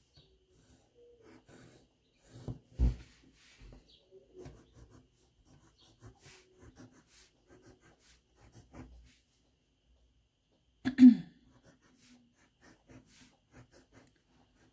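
Quiet, faint pencil strokes on paper, with a thump about three seconds in and a short, louder breathy vocal noise, falling in pitch, about eleven seconds in.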